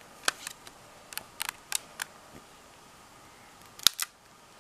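Sharp clicks and taps from handling a phone while elastic bands are fitted round it to clamp the newly glued screen. They come as a scattered series of single clicks, with the loudest about four seconds in.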